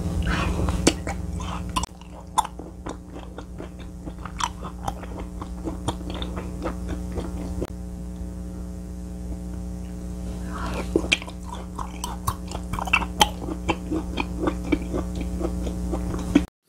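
Close-up chewing and mouth sounds of someone eating raw beef dipped in egg yolk, many small wet clicks and smacks, over a steady low hum.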